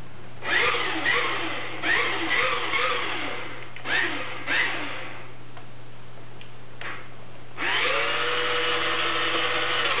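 Small electric drive motor and gears of a 1/32-scale radio-controlled model bus whining. It comes in several short bursts that each rise in pitch as the bus pulls off, then runs as a steady whine over the last couple of seconds.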